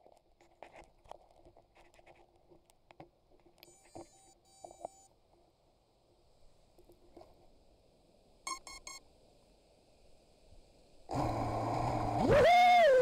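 Faint clicking and a few short electronic beeps, then about eleven seconds in the quadcopter's brushless motors (T-Motor F60 Pro 2207 2200KV turning Dalprop Cyclone 5-inch props) spin up into a loud whine whose pitch climbs and swings up and down near the end.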